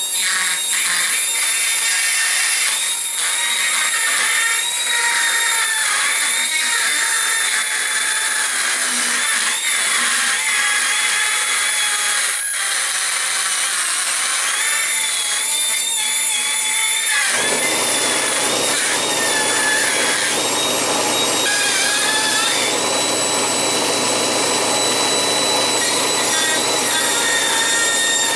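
Air-powered right angle micro die grinder running at high speed with a high-pitched whine that wavers slightly as its bit cuts into chrome-coated aluminum. About two-thirds of the way through, a low hum and rougher grinding noise join in.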